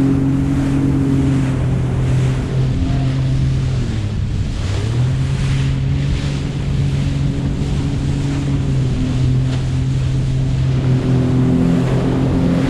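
Jet ski engine running under way, a steady hum over the rush of water and wind. About four seconds in the engine note drops and wavers briefly as the throttle eases, then picks back up.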